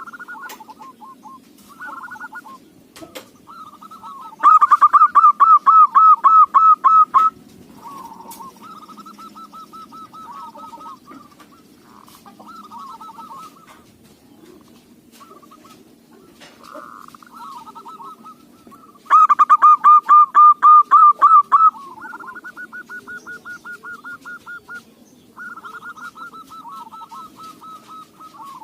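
Local zebra doves (perkutut) cooing: repeated series of rapid staccato notes, with two much louder runs of notes about four seconds in and again about two-thirds of the way through.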